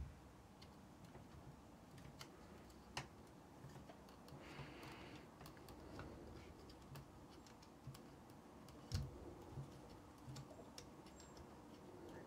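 Faint, scattered small clicks and taps of fingers handling a rubber drive belt and tape against the plastic and metal parts of a cassette deck mechanism, with a short rustle about four and a half seconds in.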